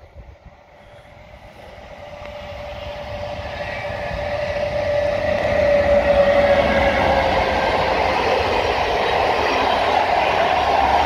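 ONCF E 1401 electric locomotive hauling passenger coaches, approaching and passing close by. The sound grows steadily louder, with a steady whine that dips slightly in pitch as the locomotive passes about six seconds in. The rumble and wheel noise of the coaches follow.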